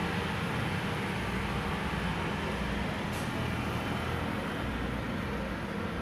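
Steady low rumble of vehicle traffic.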